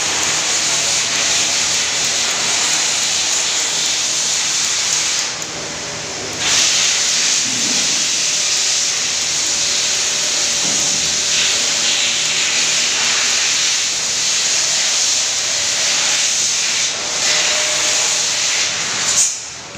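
Pet grooming blow dryer running: a loud, steady rush of air that dips briefly about five seconds in and cuts off near the end.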